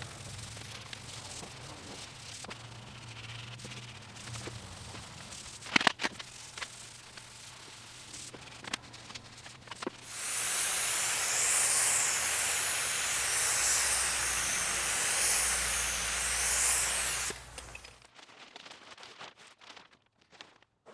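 Light handling noise with scattered clicks and one sharp knock about six seconds in. After that, a loud, steady hiss of compressed air runs for about seven seconds and cuts off sharply.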